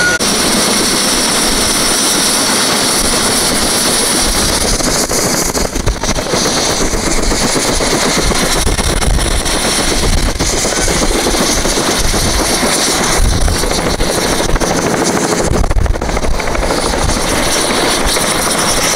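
Helicopter running on the helipad with its rotor turning: a steady, loud engine and rotor noise over a thin, steady high whine.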